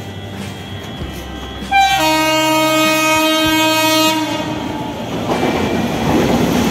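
Indian Railways electric locomotive sounding one long horn blast of several steady tones about two seconds in. The train's wheels then run noisily over the rails as it passes, growing louder near the end.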